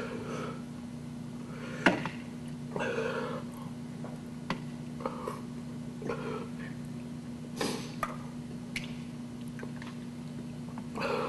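Close-up eating sounds of a man eating soup from a bowl with chopsticks: wet slurping and mouth noises every second or so, with a few sharp clicks of chopsticks against the bowl. A steady low electrical hum runs underneath.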